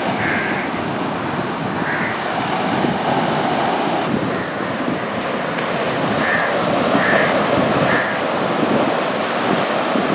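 Sea surf washing up the beach in foamy waves, a steady rushing of water. Five short bird calls ring out above it, most of them in the second half.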